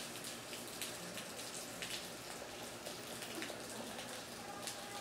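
Faint rain falling: a steady hiss with scattered sharp drop hits on hard surfaces.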